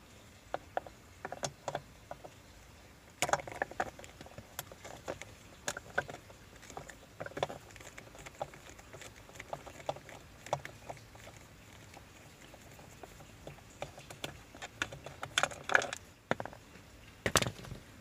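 Irregular small clicks, taps and scrapes of a screwdriver and hands working on the plastic steering-column covers, with a few louder knocks about three seconds in and near the end.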